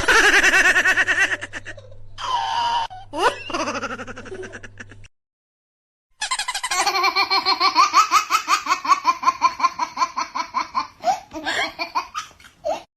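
Two comedy laughter sound effects in turn: a giggling laugh for about five seconds, then, after a second of silence, a long laugh of rapid, even ha-ha pulses that stops shortly before the end.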